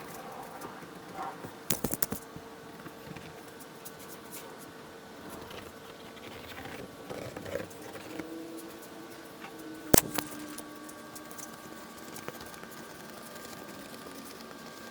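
Excess headliner fabric being trimmed around the edges of the headliner board: faint scratching and handling of fabric, with a few sharp clicks about two seconds in and one louder click near ten seconds, over a steady faint hum.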